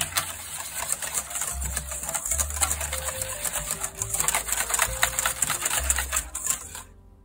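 Wire balloon whisk beating liquid egg-yolk batter in a stainless steel bowl: fast, continuous clicking and scraping of the wires against the metal, stopping shortly before the end.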